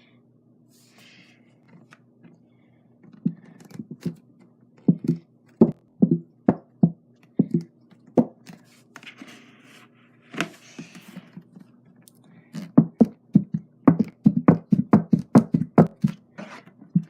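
Thick white school glue glugging out of a nearly empty gallon jug: a run of short, low, wet pops as air gulps back into the jug, scattered at first and coming quicker, about three a second, in the last few seconds. There is a brief hiss about halfway through.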